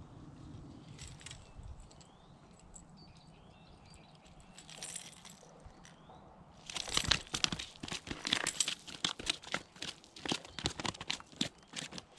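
Crunching footsteps and rustling start about halfway through and run on as a dense, irregular patter. Before that there are a few faint short chirps over quiet outdoor background.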